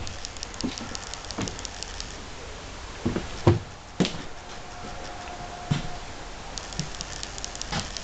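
Footsteps on an RV floor as someone walks forward, irregular dull knocks roughly once a second, with light clicks and rubbing from a handheld camera.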